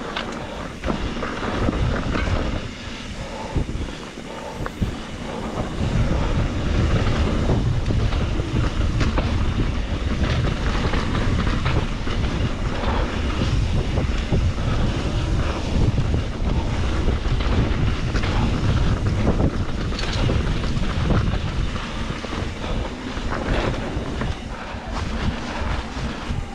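Wind buffeting an action camera's microphone during a fast mountain-bike descent on a dirt trail, with a heavy rumble and the bike's frequent knocks and rattles over the ground. The rumble gets louder about six seconds in.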